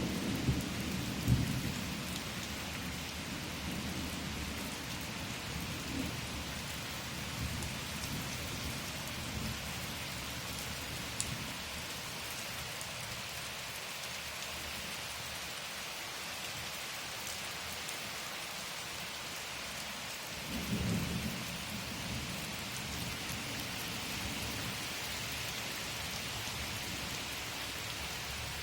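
Steady rain falling, with low rumbles of thunder in the first couple of seconds and again about two-thirds of the way through.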